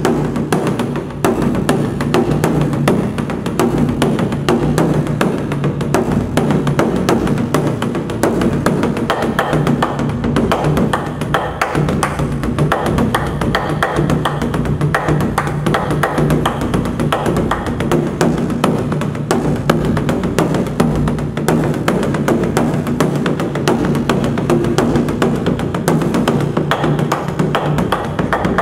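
Large Korean barrel drum (buk) struck with two wooden sticks in continuous fast drumming. Its low drumhead tone keeps ringing beneath the dense strokes.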